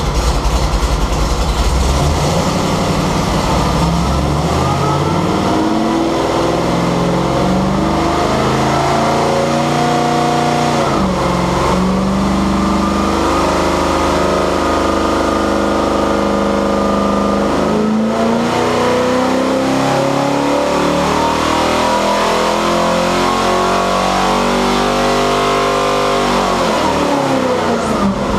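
Carbureted 388 cubic-inch small-block Chevrolet V8 running on an engine dyno, its revs climbing steadily in three long sweeps and falling back quickly after each, about a third of the way in, about two thirds in, and near the end.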